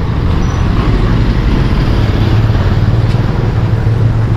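Steady running noise of a motor vehicle on the move, a low even hum under a rushing hiss.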